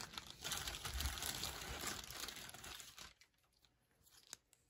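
Small clear plastic parts bag crinkling in the hands for about three seconds, then going quiet.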